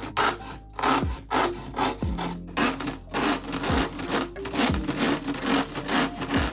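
Hand saw cutting through wood, in a steady rhythm of back-and-forth strokes at about two a second.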